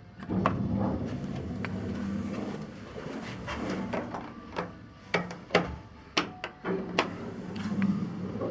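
Mitsubishi Elepet Advance V elevator doors sliding open and shut after arrival, with a low steady hum and a series of sharp clicks and knocks from the door mechanism.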